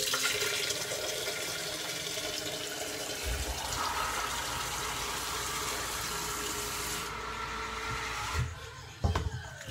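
Water running from a tap into a plastic pitcher, with a pitched filling tone that comes in about four seconds in as it fills. The flow stops about eight and a half seconds in, followed by a knock.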